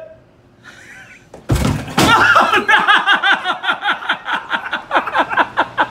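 A heavy bang about a second and a half in, with a second knock half a second later, as a wooden barn door crashes open under a man's body slam. Then a long burst of men's hearty laughter.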